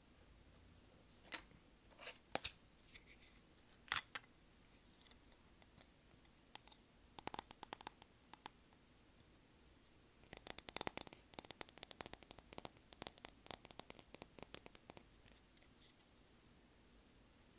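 Fingers tapping and scratching on small beach trinkets close to the microphone. A few scattered taps come first, then quick runs of light taps, densest from about ten to fifteen seconds in.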